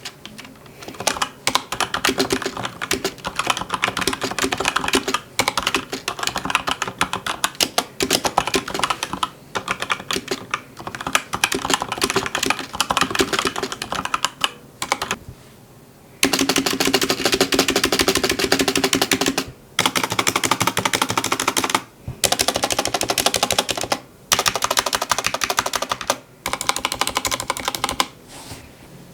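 Fast typing on a hot-swappable GMMK full-size mechanical keyboard with linear Gateron Red switches, a dense run of key clacks. It stops for about a second and a half about halfway through, then comes back in several runs separated by short pauses.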